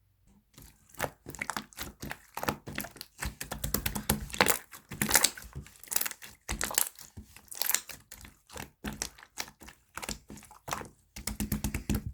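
Jelly slime being squeezed and pulled by hand: a dense, irregular run of crackling and popping clicks, starting about half a second in.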